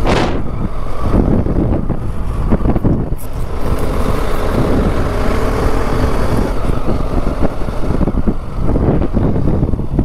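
Motorcycle engine running steadily under way, with wind rushing over the rider's microphone.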